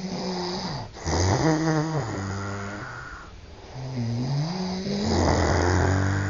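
Loud snoring from sleeping men: three long snores of one to three seconds each, with short breaks between them. The last one rises in pitch as it starts.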